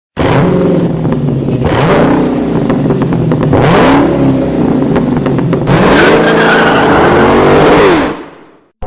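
Loud car engine revving up and down several times, with surges of noise on each rise, then fading out near the end.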